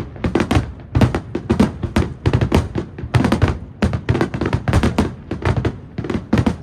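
Fireworks finale: aerial shells bursting in rapid succession, several loud bangs a second with no pause.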